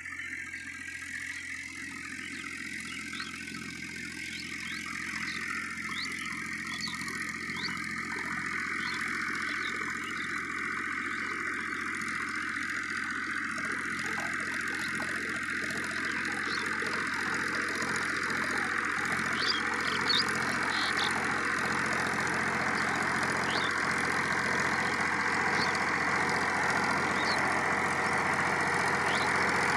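Powertrac 439 Plus diesel tractor engine running steadily under load as it drives a 66-blade rotavator through the soil, growing louder as the tractor comes closer.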